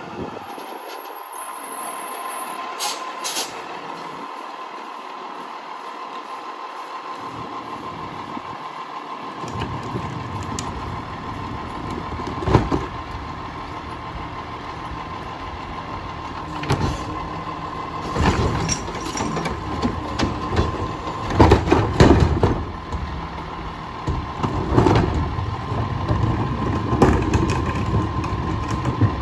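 Front-loading garbage truck with a Heil Curotto-Can automated arm working a route: a steady high whine runs throughout, with a brief hiss about three seconds in. Heavy engine rumble joins about a third of the way through, followed by a series of clanks and bangs as carts are handled and dumped.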